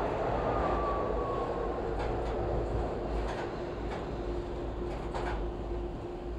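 Toronto subway train running through a station and into the tunnel: a steady rumble of wheels on rail, with a faint falling whine early on, a steady hum that comes in about a second in, and a few short clicks midway.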